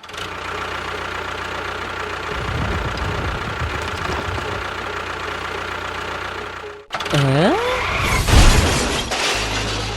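Steady engine-like machine noise that cuts off abruptly about seven seconds in. A short swooping tone, a clattering noise and a low steady hum follow.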